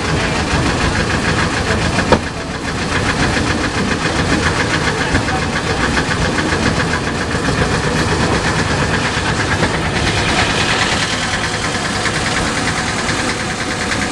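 Small vehicle engine running steadily close by, with a fast even pulsing beat. A single sharp knock about two seconds in.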